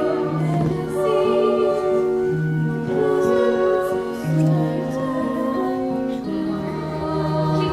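Student cast singing a musical-theatre number over instrumental accompaniment, with long held notes.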